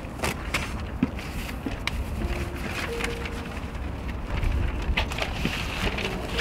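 Sheets of drawing paper rustling and being gathered up off stone steps, with many light clicks and ticks over a steady low rumble of wind on the microphone.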